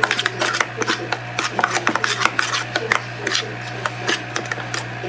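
A metal spoon stirring and scraping a thick mayonnaise-based tartar sauce in a small bowl, giving quick irregular clicks and scrapes against the bowl.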